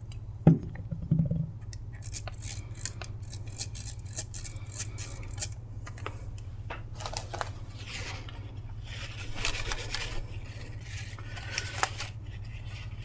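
Light clicks, ticks and scraping of small plastic parts as a microwave's rotary encoder and control panel are handled, with a few short hisses of aerosol alcohol contact cleaner being sprayed into the encoder to clean its contacts.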